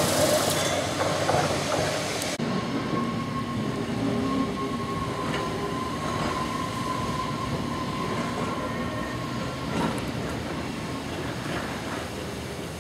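Electric tramcars running on rails: first a Manx Electric Railway car, then, after a sudden change about two seconds in, Snaefell Mountain Railway car No. 5 pulling away, with a steady high whine that stops about ten seconds in.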